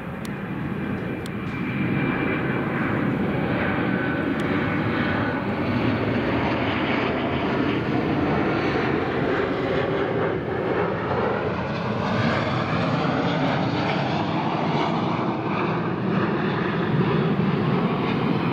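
Boeing 737-400's twin CFM56 turbofans on landing approach: a steady rushing jet noise that grows louder over the first couple of seconds and then holds, with faint engine whine tones sliding in pitch through it.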